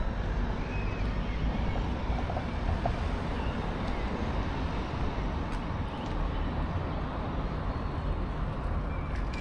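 Steady outdoor city background: a low, even rumble of distant traffic, with a couple of faint high chirps.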